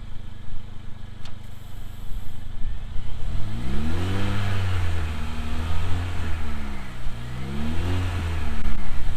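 Mercedes-AMG CLA45's turbocharged four-cylinder engine pulling under part throttle below 3000 rpm. From about three seconds in, its revs climb, fall back and climb again several times, with a hiss of intake air over it from the K&N air filter.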